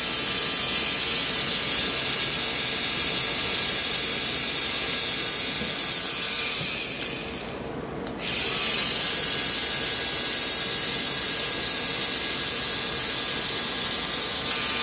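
3Doodler 3D pen running, its drive motor whirring steadily as it feeds plastic through the nozzle. It dies away about halfway through and starts again abruptly about a second later.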